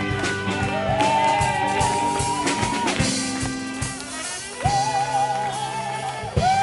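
Live band playing an upbeat dance tune on drum kit, guitars and upright bass, with a steady beat. A voice sings long held notes over it, some with vibrato.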